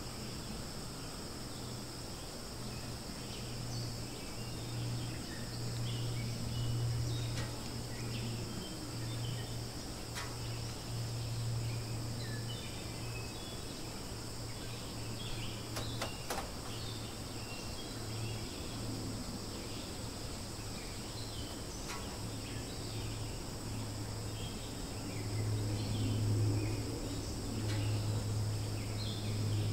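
Insects chirring steadily in two high-pitched bands, with short scattered chirps over them and a low hum that swells and fades, growing louder near the end.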